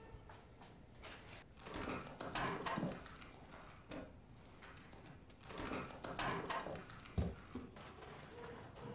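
Quiet rustling and scraping of objects being handled, in two spells, with one sharp knock about seven seconds in.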